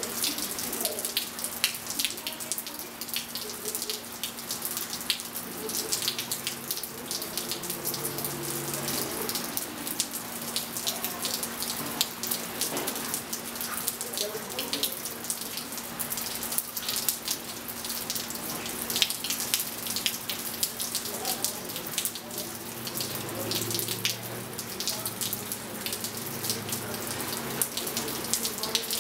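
Steady rain falling on a swimming pool and patio, with many close drips splashing, over a steady low hum.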